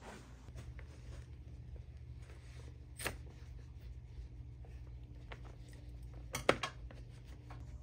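Faint clicks and snips as the threads holding an old size tag on a sweatpants waistband are clipped out. The sharpest click comes about three seconds in, and a quick pair about six and a half seconds in.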